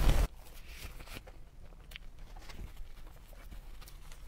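Close-miked eating sounds, loud crackly chewing, that cut off abruptly a fraction of a second in. Faint scattered clicks and rustles follow.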